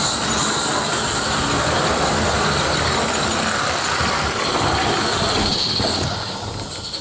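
Roundhouse live steam locomotive running on vintage Hornby O gauge tinplate track, hissing steam as it comes along the rails. The sound changes near the end as it passes close by.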